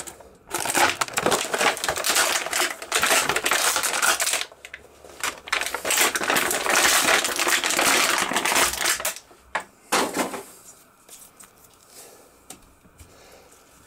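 Plastic packaging crinkling and crackling as toy accessories are unwrapped, in two long stretches with a short break between, then a couple of brief rustles before it goes quieter.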